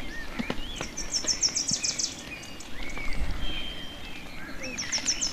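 Songbirds calling: a fast high trill about a second in and again near the end, with short whistled notes between. A few knocks come at the start.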